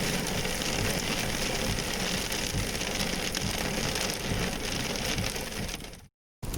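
Rain falling steadily, an even hiss with no break until it cuts off abruptly near the end.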